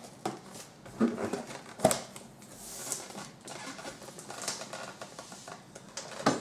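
A taped cardboard box being opened by hand: packing tape pulled and torn away, cardboard flaps and a loose cardboard sheet scraping and rustling, with a sharp knock about two seconds in and another near the end.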